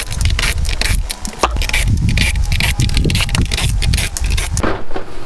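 Cordless drill-driver backing fasteners out of a plastic front bumper cover, with a dense low rumble and irregular clicking and scraping of plastic. It stops near the end.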